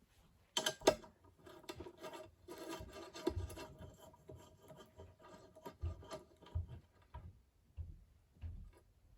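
Parts of a Safetran mechanical crossing bell being worked loose and handled during disassembly: two sharp clanks about half a second in, then scraping and rubbing with a faint steady ring and occasional dull knocks, dying away near the end.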